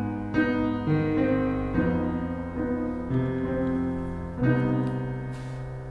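The song's instrumental ending: slow piano chords, each struck and left to ring, the music gradually dying away.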